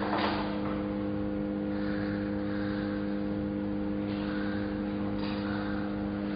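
Shielded metal arc (stick) welding: the welding machine's steady electrical hum under the rough, crackling hiss of the arc, with a sharp knock just at the start.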